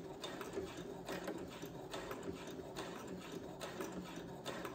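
Brother CS7000X computerized sewing machine running and stitching: a steady motor hum with repeated needle ticks.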